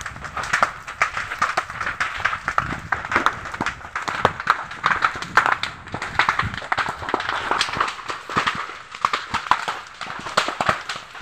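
Grass and brush fire crackling and popping as it burns through dry grass, leaves and undergrowth, with many small irregular snaps.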